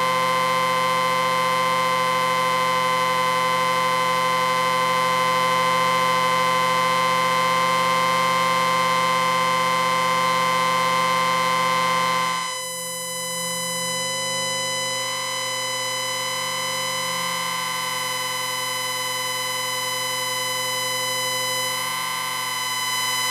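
Amplifier whine: a steady electronic beeping tone made of many held pitches at once. About halfway through it changes abruptly to a slightly quieter, different mix of tones, which then holds steady.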